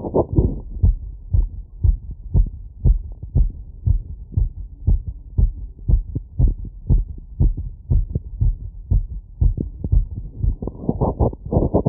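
Human heartbeat heard through a wireless electronic stethoscope: fast, regular lub-dub thuds, raised after a 3 km run. Near the end, a denser, rougher noise comes in over the beats.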